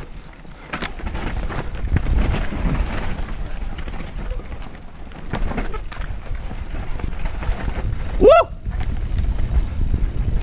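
Mountain bike descending a steep dirt trail at speed: tyres rumbling over roots and loose ground, the frame and chain rattling, and wind buffeting the microphone. About eight seconds in, a short rising squeal cuts through.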